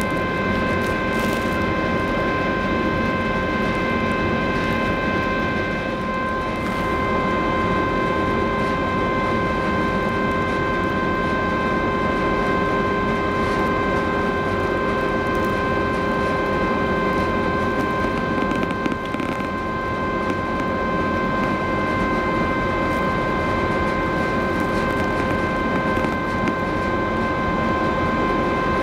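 The Silja Symphony cruise ferry's engines and machinery running steadily as the ship leaves the quay: a constant rumble with a steady multi-tone whine over it.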